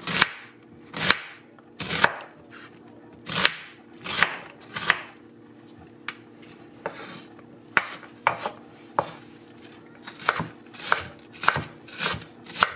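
Chef's knife cutting an onion on a wooden cutting board: separate knife strikes on the board, about a second apart at first, coming quicker near the end as the onion is diced.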